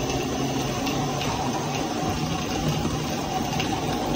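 Live-steam model Shay locomotive running steadily while hauling a heavy train, a continuous hiss and rumble of steam and gearing with a few faint clicks from the wheels on the track.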